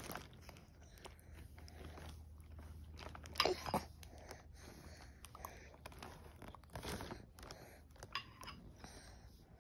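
An 8-month-old baby smacking and mouthing a spoonful of oatmeal: faint wet mouth and lip smacks, with louder clusters about three and a half seconds in and again near seven seconds.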